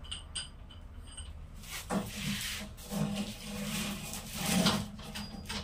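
Thick rubber hydraulic breaker hose rubbing and scraping against the hose crimping machine as it is handled and set in place: a few light clicks at first, then uneven scrapes for about three seconds, loudest near the end, over a steady low hum.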